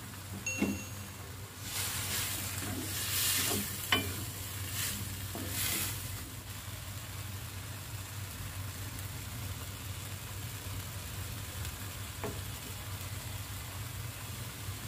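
Vegetables sizzling in a wok while a wooden spatula stirs them, with scraping and a few sharp knocks of the spatula against the pan in the first six seconds. After that, a quieter steady sizzle over a low hum.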